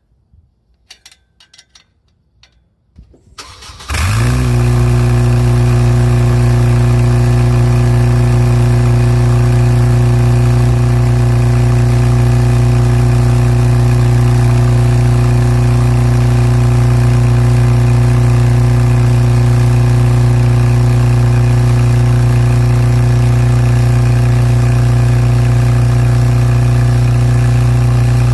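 Honda Civic Type R EP3's K20A four-cylinder engine starting through a competition muffler. It catches abruptly about four seconds in, after a few faint clicks, then idles steadily and loudly.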